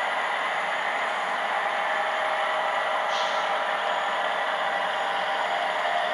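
HO scale model train running steadily past: the wheels of a string of plastic hopper cars rolling and clattering along the track, with the locomotive passing near the end.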